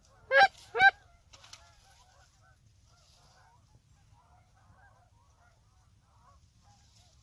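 Two loud, close goose honks about half a second apart. After them, a distant flock of Canada geese keeps up faint, scattered honking.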